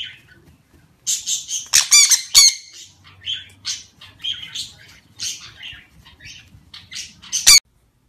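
Parrot squawking in a quick series of short, harsh, high calls that begins about a second in and cuts off suddenly near the end.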